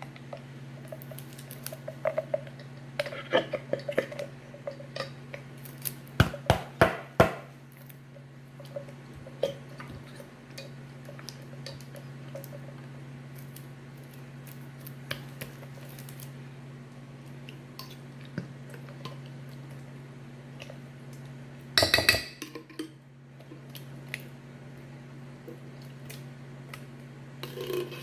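Kitchen clatter of dishes, pots and utensils: scattered clicks and knocks, a quick run of sharp knocks about six seconds in and another louder clatter near twenty-two seconds, over a steady low hum.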